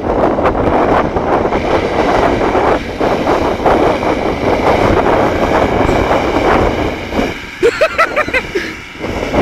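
Range Rover's engine working hard under load as it drags a tractor-pull weight sled, a loud, dense, steady din. It drops away briefly about seven and a half seconds in, then comes back up.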